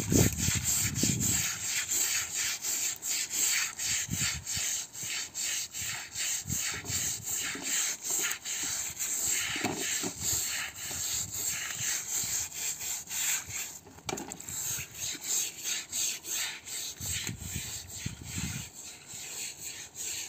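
Stiff plastic hand brush scrubbing a wet wool carpet in quick, even back-and-forth strokes.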